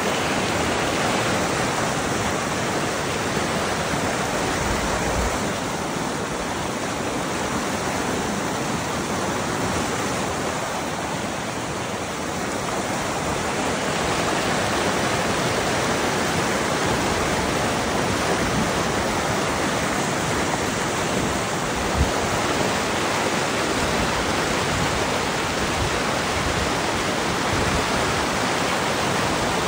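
Flood-swollen stream, normally ankle-deep, now running several feet deep after heavy rain: steady, loud rushing of fast turbulent water, with one brief low thump about two-thirds of the way in.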